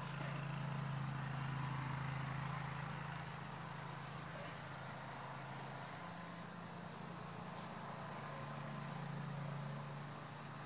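Outdoor ambience: a steady low hum that swells and eases slightly, under a constant high-pitched insect drone.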